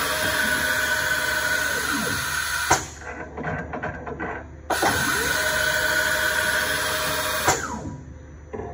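Compressed air hissing in two bursts of about three seconds each, switched hard on and off by the solenoid valves of a CNC mill's pneumatic tool-change system, with a motor whine rising and falling under each burst. Between the bursts come a few mechanical clunks and clicks.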